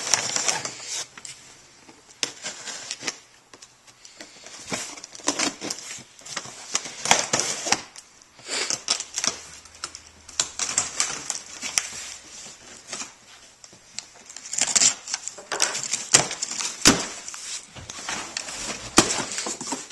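A taped cardboard shipping box being opened by hand: irregular rustling, scraping and tapping of cardboard and clear packing tape, with many short clicks.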